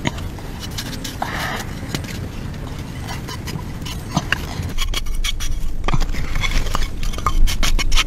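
Hands scraping and brushing loose ash and soil aside over buried fired clay tiles, with many small clicks and clinks of grit and tile. It gets busier and louder about halfway through.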